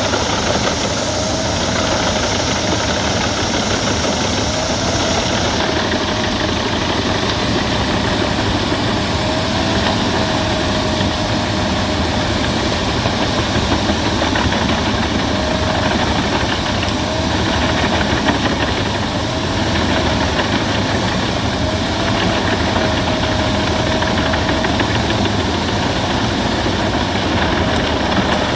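Albach Diamant 2000 wood chipper running steadily while chipping branches, with a faint tone that dips and recovers every few seconds.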